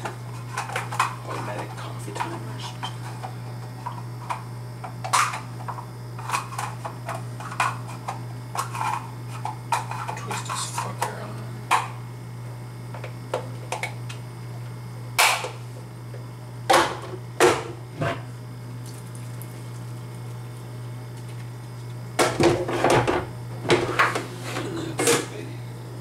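Plastic coffee maker parts clicking and knocking as they are handled and fitted back together. The sharp clicks come irregularly, the loudest in two clusters in the second half, over a steady low hum.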